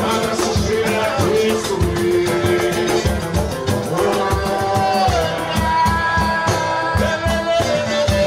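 Live pagode samba: a male lead singer sings over cavaquinho, guitar and hand drums, with a steady beat of low drum strokes under the melody.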